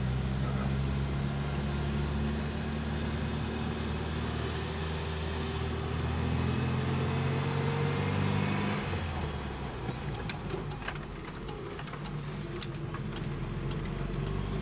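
Opel Kadett C engine heard from inside the cabin on a downhill run, its pitch sagging and rising with the throttle. About nine seconds in the engine note drops away, and sharp clicks and knocks from the car on the bumpy road follow, with one louder knock near the end.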